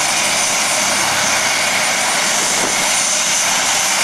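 Apache AH Mk.1 attack helicopter running on the ground with its rotor turning: a steady, loud rush of turbine and rotor noise from its twin Rolls-Royce Turbomeca RTM322 turboshafts, with a thin high whine over it.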